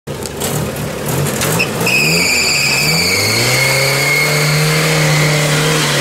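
Off-road 4x4 engine revving up and down, then held at high revs from about three seconds in with the wheels spinning in mud. Over it runs a loud, high, steady whine that starts about two seconds in and falls slightly in pitch.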